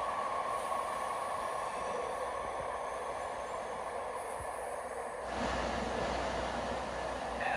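SFMTA Muni Metro light rail train rolling along an underground station platform and slowing to a stop. About five seconds in, the rolling hiss gives way to a low steady hum.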